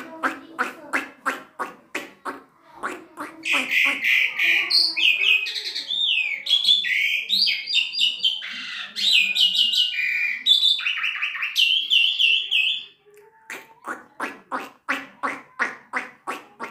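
Asian pied starling (jalak suren) singing continuously: a fast chatter of about three to four short notes a second, then a long run of varied whistles, squawks and gliding notes, and the rapid chatter again near the end.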